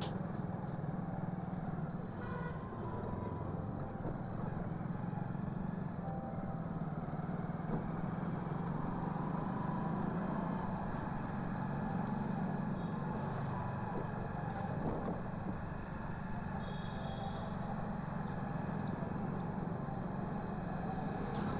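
Motorcycle engine running steadily as the bike cruises slowly along a town street, with road and traffic noise around it.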